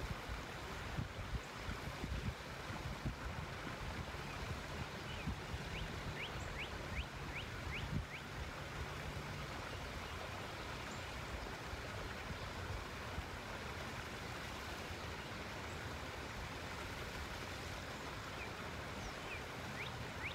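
River water running over rocks, a steady rushing hiss. Under it there is a low rumble in the first few seconds. Short runs of high chirps come about six seconds in and again near the end.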